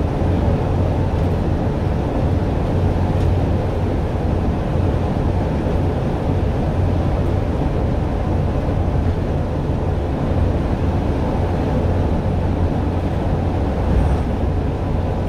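Steady running noise inside a bus at speed on the concrete guide tracks of the O-Bahn guided busway: a low drone of engine and tyres rolling on concrete. Near the end a bus passing the other way adds a brief swell.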